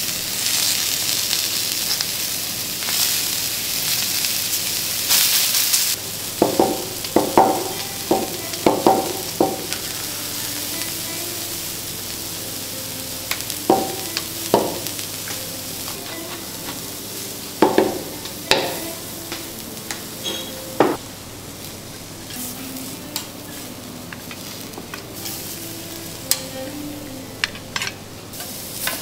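Vegetables sizzling on a steel teppanyaki griddle as sauce hits the hot plate, loudest for the first six seconds, then settling to a quieter sizzle. Over it, a series of sharp metallic clinks and taps of the spatulas against the griddle, each ringing briefly.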